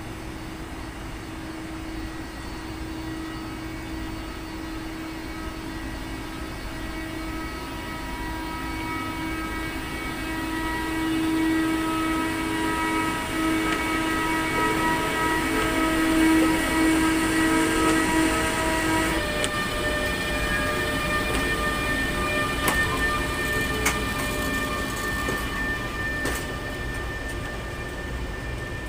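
EP20 electric locomotive pulling a passenger train away from the platform: a steady multi-tone whine from its traction electrics over a rolling rumble, growing louder as the locomotive passes close by. After about two-thirds of the way through, the whine's tones change and the coaches roll past with a few sharp wheel clicks over rail joints.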